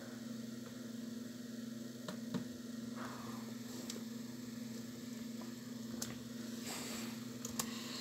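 Steady low electrical hum with a few faint separate clicks scattered through it.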